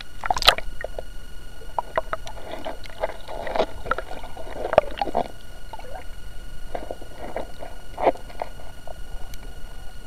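Water heard from a camera held underwater: a splash right at the start as it goes under the surface, then muffled sloshing and gurgling with irregular clicks and knocks.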